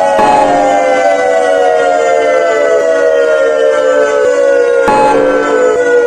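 Emergency alert siren wailing: several tones at once, falling slowly and steadily in pitch, with a brief click about five seconds in.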